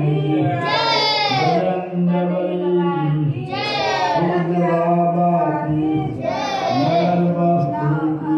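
An elderly man singing a devotional song through a microphone, in long drawn-out phrases with held, wavering notes.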